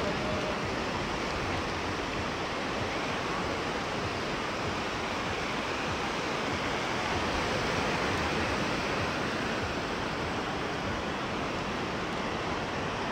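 Sea surf washing onto a beach: a steady rushing noise with a gentle swell in the middle.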